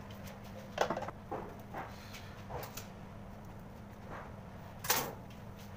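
Scattered light knocks and clicks from decorations and tools being handled on a cake-decorating counter. The loudest come about a second in and near the end, over a steady low electrical hum.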